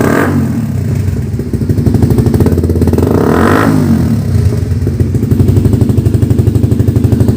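Suzuki GSX-R150's single-cylinder engine breathing through an Akrapovic M1 full-system carbon exhaust, idling and blipped twice: a rev falling back right at the start and a second quick rise and fall about three and a half seconds in, then a steady idle. The revs are only light blips, not high RPM.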